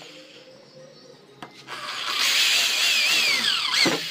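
Electric drill boring a hole through a car's trunk lid for spoiler mounting. About halfway in it starts a loud high whine that wavers in pitch as the bit cuts, then winds down and stops near the end.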